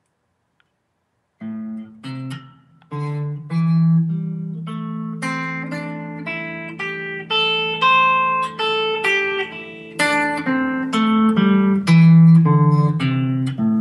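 Guitar playing the A minor pentatonic scale one note at a time. It starts about a second and a half in, runs up the scale and comes back down.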